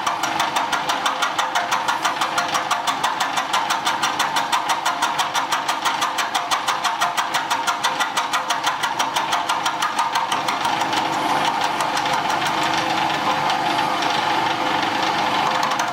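A machine tool running and cutting into a cast-iron part, with a rapid, even beat of several strokes a second. The beat blurs into a steadier sound after about eleven seconds.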